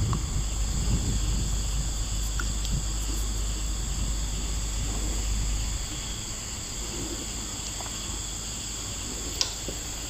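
Steady outdoor insect chorus, a continuous high buzzing, over a low rumble that eases about six seconds in.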